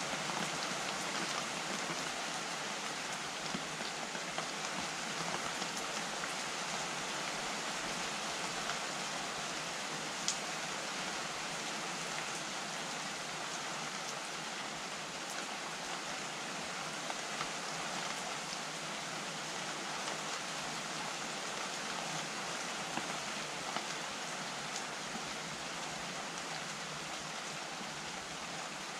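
Steady rain falling: an even hiss with scattered sharper ticks of single drops, the loudest about ten seconds in.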